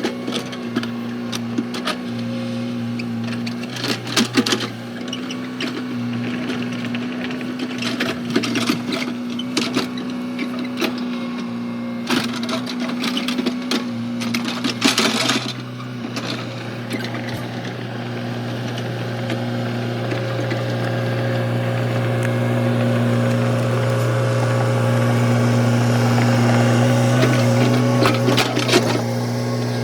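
Komatsu excavator's diesel engine running steadily, with repeated clatters and scrapes of the machine working. The engine grows louder through the second half.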